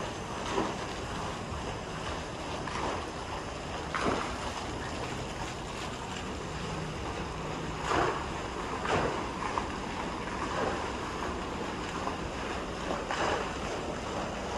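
Steady rush of wind and sea on the open deck of a cruise ship, with wind buffeting the microphone. A few brief louder surges come several seconds apart.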